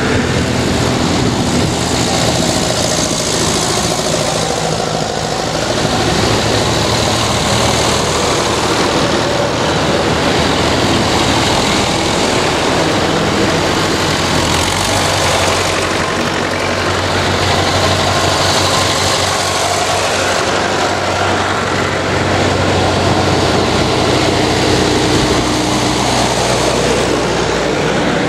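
Vintage tractor engines running as a procession of old tractors drives past one after another, the sound swelling and easing a little as each passes.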